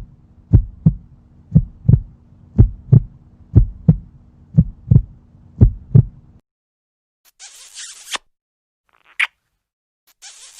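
Heartbeat sound effect: paired low thuds, a double beat about once a second, over a steady low hum, stopping abruptly about six seconds in. Then a brief high hissing rustle and a single sharp click.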